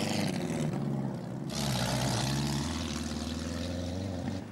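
Engine of the vintage Golden Ford racing car running hard as it drives up a steep hill climb, with an abrupt change in the sound about a second and a half in.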